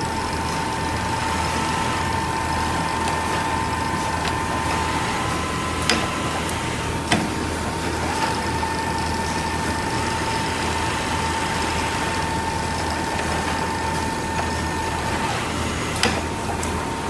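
Richpeace automatic sewing machine running: steady mechanical noise with a steady whine, which fades out near the end, and a few sharp clicks.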